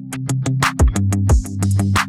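Upbeat electronic background music with a quick, steady drum-machine beat, kick drums and synth bass.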